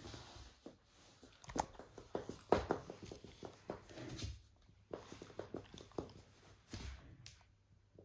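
A puppy and a black panther moving about close together: irregular scuffles, knocks and small animal noises.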